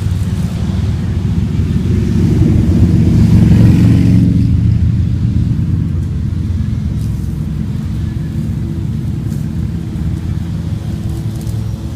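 EGO 56V battery-powered lawn mower running, a steady low hum that swells over the first few seconds and eases off after about four seconds.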